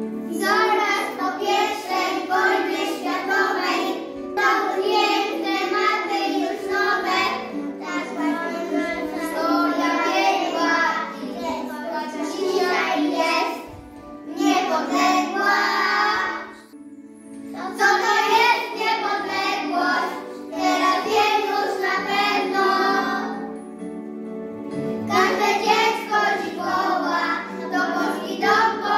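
A group of young children singing a song together over instrumental accompaniment, in sung phrases broken by short pauses.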